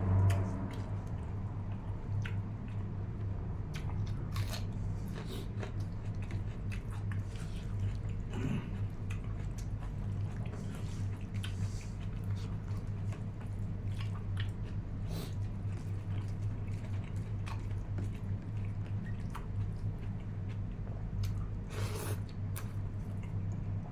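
A person chewing and biting food close to the microphone, with scattered short wet clicks and smacks over a steady low hum.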